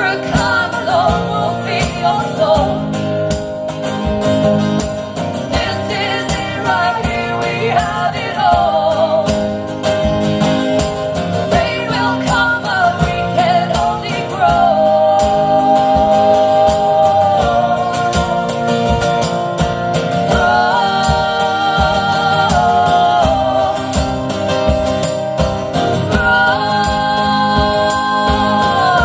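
Two women's voices singing long held harmonies without clear words over strummed acoustic guitar, in a live acoustic performance.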